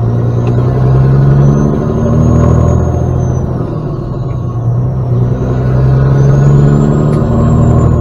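Semi truck's diesel engine pulling away through the gears: the engine note climbs, drops at a gear change about three and a half seconds in, then climbs again, with a faint high whine rising and falling along with it.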